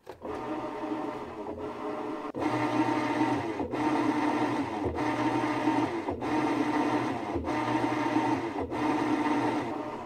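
Whirlpool top-load washer running its heavy agitation test: the drive motor runs and the agitator swings clockwise and counterclockwise, with a short break in the sound about every 1.2 seconds as it reverses direction. The sound grows louder about two seconds in.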